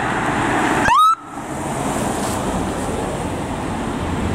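Police Dodge Charger and street traffic passing with steady road and engine noise. About a second in, a short siren whoop rises sharply in pitch and cuts off abruptly.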